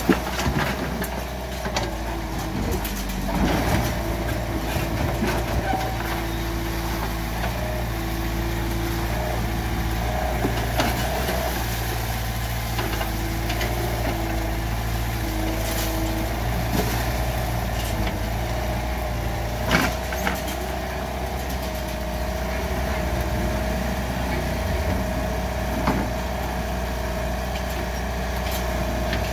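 Mini excavator's diesel engine running steadily, with a whine that wavers in pitch and a few sharp metal knocks now and then.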